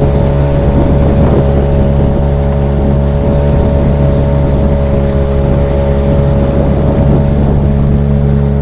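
Tohatsu 3.5 hp outboard motor running at a steady speed, pushing a small inflatable boat across the water, with water rushing along the hull.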